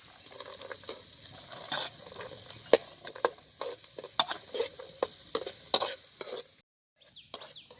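Metal spatula stirring carrots and onions frying in oil in a kadai, with a light sizzle and irregular scraping clicks and knocks against the pan. A steady high-pitched chorus of crickets runs underneath.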